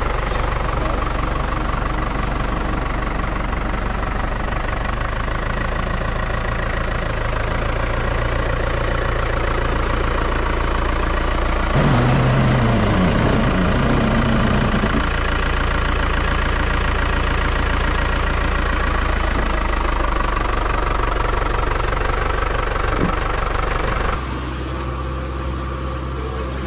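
Farmall tractor's diesel engine running steadily close by; about halfway through it pulls harder for a few seconds, its pitch rising and falling. Near the end it cuts off abruptly to a quieter, steadier drone.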